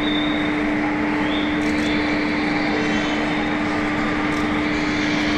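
Keio 7000 series electric train running at a steady speed: an even rumbling running noise with a steady droning tone held at one pitch.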